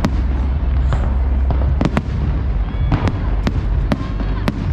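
Fireworks at a public display going off in quick, irregular succession: about eight sharp bangs in under five seconds over a constant deep rumble.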